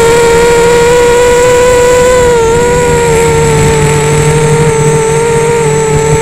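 Rooster 230 FPV quadcopter's motors and propellers whining at a steady pitch, heard from on board. The pitch dips slightly twice.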